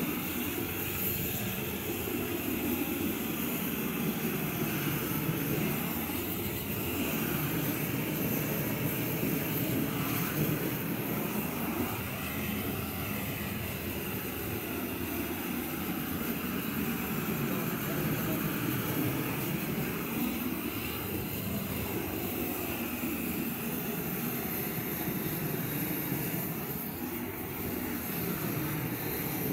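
Hose-fed gas roofing torch burning with a steady rushing flame noise that swells and eases a little as it is swept. It is heating APP modified-bitumen waterproofing membrane to weld it down onto the roof.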